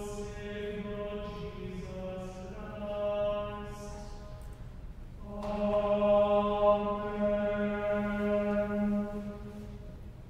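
A prayer chanted in plainsong on one steady reciting note, with a slight fall in pitch at the end of the first phrase. A second, louder phrase begins about five seconds in.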